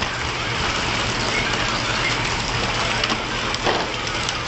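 Fishing boat's engine running with a steady low drone under a broad wash of wind and sea noise, with a couple of brief knocks a little past three seconds in.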